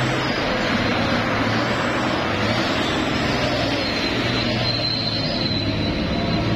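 Hino 500 dump truck's diesel engine running steadily as the truck creeps past close by, a loud continuous engine sound.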